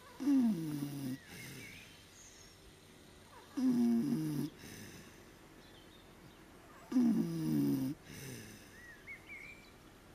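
Kunekune pig snoring in its sleep: three loud snores, each about a second long, coming about every three seconds with quiet breathing in between.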